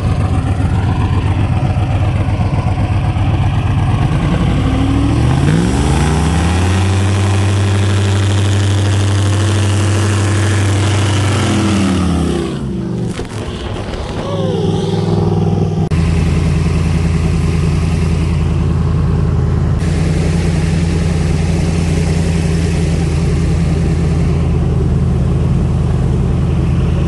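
Airboat engine and propeller running, revving up about five seconds in, held at high revs for several seconds while trying to power the airboat off a sandbar, then dropping back and settling into a steady run from about halfway.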